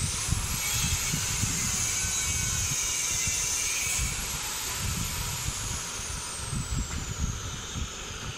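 Background noise of a passing vehicle: a low rumble, a hiss that stops about four seconds in, and a thin high whine that falls slowly in pitch toward the end.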